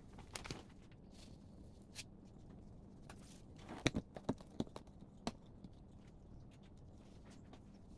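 A few light clicks and taps, the loudest a quick cluster about four seconds in, over a faint steady low hum.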